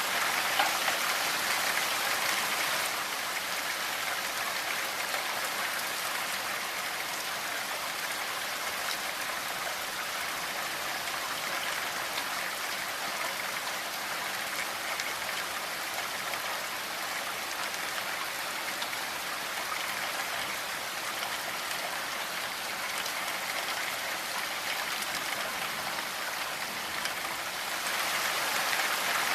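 Steady rainfall: a dense, even hiss of many drops with no single drop standing out, a little louder at the start and again near the end.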